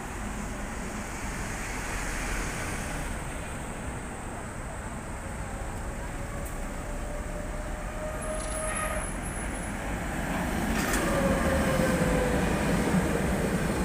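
Tatra KT8D5 articulated tram coming into the stop close by, its rumble growing loudest about 11 seconds in, with a whine that falls in pitch as it slows. Street traffic runs underneath.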